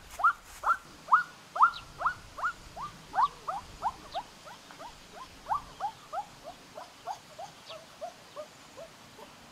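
A captured duck crying over and over, short rising squeals about three a second, which grow fainter and lower toward the end as it is carried away.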